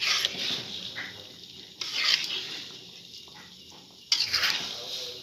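Metal spatula stirring a wok full of beaten eggs as they cook, three scraping, sizzling strokes about two seconds apart, each fading out.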